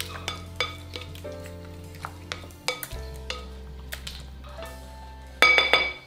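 Kitchen clinks and taps of a spoon and a glass mixing bowl over background music with slow, held bass notes. About five and a half seconds in comes a louder run of ringing clinks.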